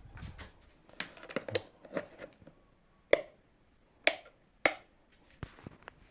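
Handling noise from setting up equipment: a series of sharp clicks and knocks, with three loud single clicks about three, four and four and a half seconds in.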